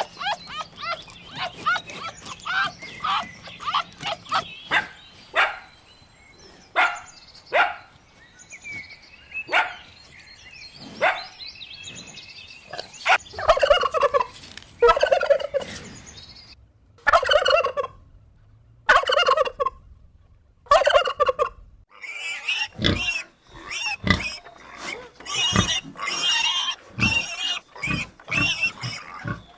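Turkeys gobbling: a string of short warbling calls repeated again and again, with longer, louder gobbles around the middle.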